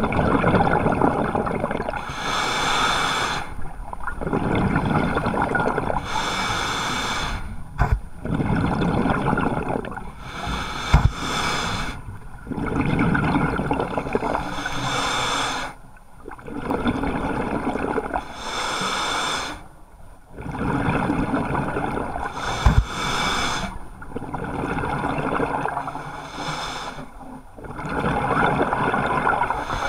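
Scuba diver breathing through a regulator underwater: long rushing bursts of exhaled bubbles, one about every four seconds, with short quieter gaps for each inhale, heard through an action camera's underwater housing. A few faint clicks fall between the breaths.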